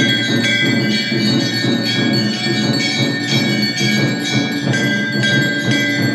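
Hindu temple bells ringing continuously with percussion during an evening puja ritual: dense metallic ringing whose notes change every half second or so, over a steady pulsing beat.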